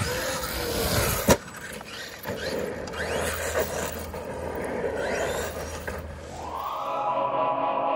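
Traxxas Maxx 1/10 RC monster truck driving on asphalt: its brushless electric motor whines up and down in pitch as it accelerates and slows, with tyre and chassis noise and a sharp knock about a second in. Background music starts near the end.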